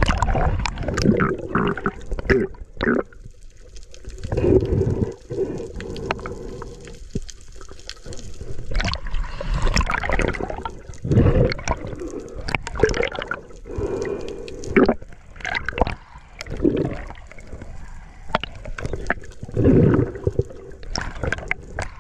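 Water sloshing and gurgling in irregular surges a second or two apart, as heard by a camera in or at the water's surface while swimming.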